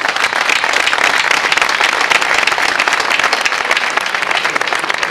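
Crowd applauding, with dense, steady clapping.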